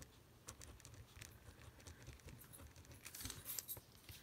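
Faint scratching of a gel pen writing on a paper card, with a slightly louder rustle about three seconds in as the hand moves off the paper.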